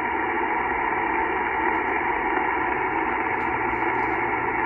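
Steady hiss of band noise from a shortwave transceiver on SSB, with no station heard over it. The noise fills the narrow voice passband of the receiver, which gives it a thin, muffled radio sound.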